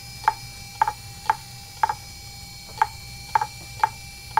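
Fujitsu MHK2048AT 2.5-inch IDE laptop hard drive clicking at about two clicks a second, with one click skipped partway through, over a steady faint whine.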